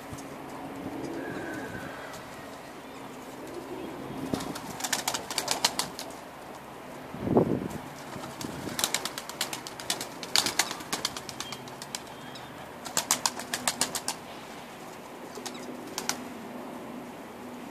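Kelkit tepelisi pigeons flying about a rooftop loft: several bursts of quick wing claps and flapping as birds take off and land, with faint low cooing in the background. A short low thump about seven seconds in is the loudest sound.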